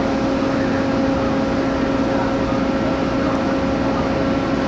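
Heavy lifting machinery's engine running steadily at a constant pitch, an even droning hum that does not change.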